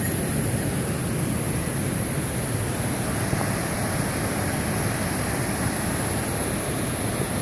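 Water rushing steadily, a constant even roar that swells in just before and then holds level.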